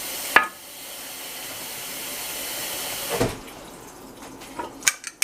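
A steady rushing hiss cuts off sharply about half a second in. A softer hiss then builds and stops about three seconds in. Near the end come several light clinks of a utensil against dishes as salsa is fetched.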